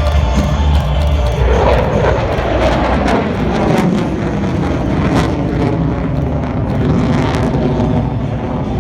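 Military aircraft flying past in an air show display: a loud, steady engine roar whose pitch falls about two seconds in as it passes.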